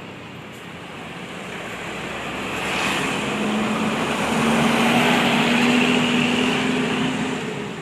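A bus driving past close by: its engine drone and tyre noise swell over several seconds and fade near the end.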